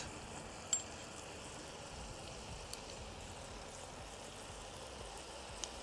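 Melted butter and oil sizzling gently in a cast iron wok, a steady soft hiss with a light click a little under a second in.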